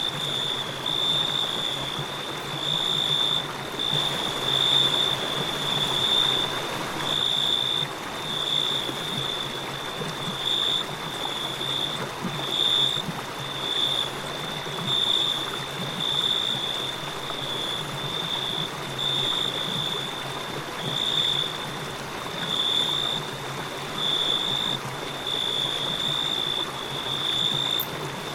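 River water running steadily, with a cricket chirping about once a second in short, high-pitched pulses.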